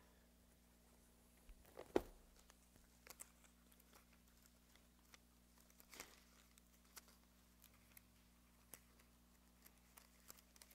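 Near-silent room with faint scattered rustles and clicks of Bible pages being turned, and a single louder knock about two seconds in.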